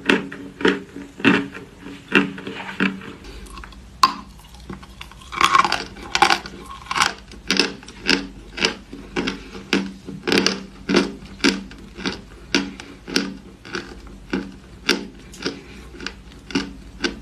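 Crunching sounds made close to the microphone: short crisp crunches repeating about twice a second, with a pause broken by a single click about four seconds in.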